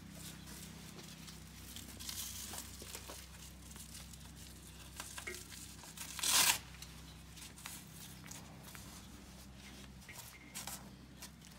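Hook-and-loop (Velcro) strap of a horse's standing wrap being peeled and pressed down, with rustling of the wrap fabric; the loudest rip comes about halfway through and lasts about half a second.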